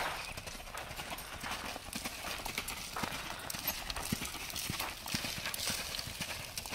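Hoofbeats of a saddled Appaloosa/Quarter Horse gelding loping on dirt and gravel footing, in a steady, rhythmic beat.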